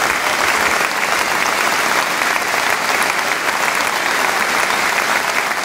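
A large stadium crowd clapping steadily: a sustained round of applause from thousands of fans.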